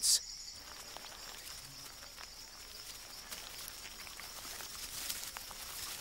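Rainforest night-insect chorus, a steady high drone, with a few faint scattered ticks and rustles in the leaf litter.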